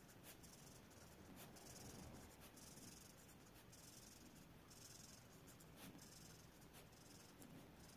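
Faint scratching of a marker tip stroking across a colouring-book page, in short repeated strokes about once a second.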